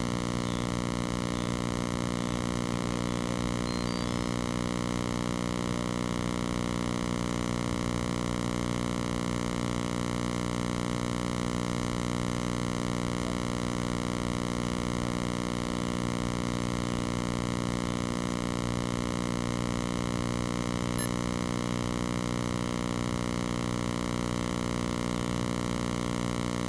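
Steady electronic hum made of many even tones stacked together, unchanging in pitch and level.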